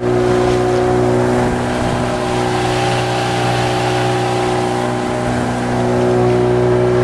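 Small fishing boat's motor running steadily under way, a constant engine drone under a loud rushing hiss of water and wind.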